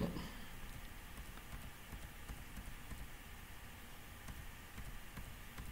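Faint, scattered clicks from operating a computer, spaced irregularly, over a low steady room hum.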